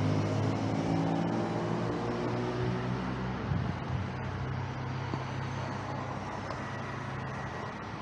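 Car engine running at low revs over general street traffic noise, settling into a steady low idle hum about three and a half seconds in.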